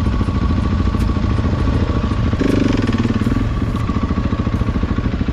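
Adventure motorcycle engine running under way with a fast, even pulsing beat; the engine note strengthens briefly about halfway through.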